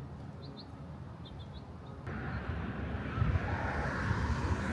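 A few short bird chirps, then from about two seconds in the growing noise of a vehicle going by on the road.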